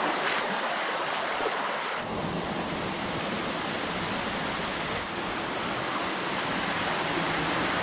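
Creek water rushing steadily over rocks, a loud, even wash of white water that deepens and fills out about two seconds in.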